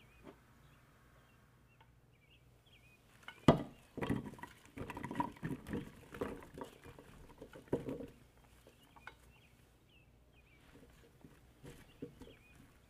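Chopped vegetables tipped from a glass bowl into a clay pot. A sharp knock comes about three and a half seconds in, then pieces clatter and thud into the pot for about four seconds, and a few light taps follow near the end as the pieces are arranged by hand.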